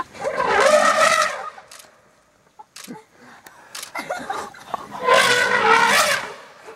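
Young African bull elephant trumpeting at African wild dogs, two long, loud, shrill calls: one at the start and one about five seconds in.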